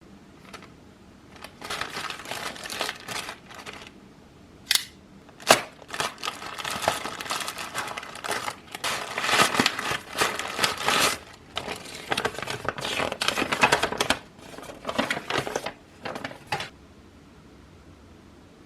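Packaging being handled by hand: irregular rustling and crinkling, with two sharp clicks about five seconds in. It stops shortly before the end.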